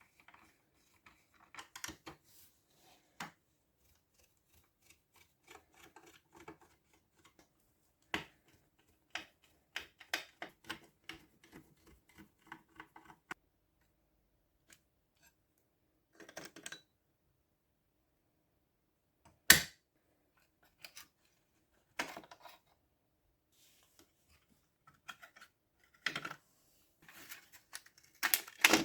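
Scattered clicks, taps and short scraping handling sounds of hand work on parts, with quiet gaps and one sharp, louder knock about two thirds of the way through.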